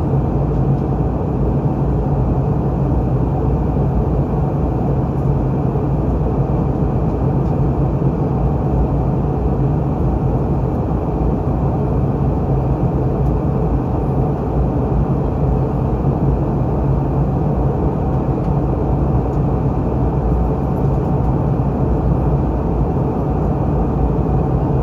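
Steady cabin noise of a Boeing 717 airliner in flight, heard from inside the cabin: an even engine hum and airflow noise, strongest in the low range. The sound comes from its two rear-mounted Rolls-Royce BR715 turbofans.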